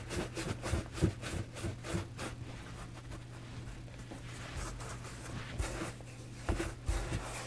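Hands rolling and patting baguette dough on a floured silicone baking mat: soft rubbing with many light taps, busiest in the first two seconds, and a few soft thumps near the end, over a faint steady low hum.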